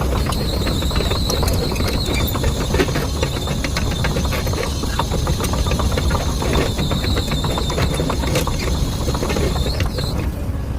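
Excavator running steadily, with a constant engine rumble, rapid irregular clanking and a thin high whine that fades near the end.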